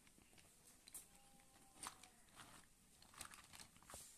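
Faint clicks and taps of hard plastic toys being handled and set down on a table, about four of them spread through otherwise near silence.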